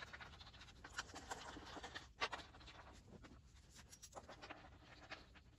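Faint hand-work noises: small clicks and scrapes of a bolt being fitted by hand into a threaded insert in the wooden table frame, with one sharper click a little after two seconds in.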